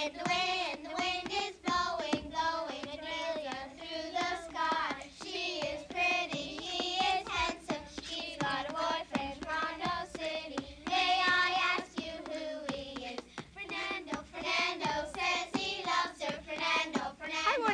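A group of girls singing a skipping-rope rhyme, with a steady beat of sharp slaps under the singing.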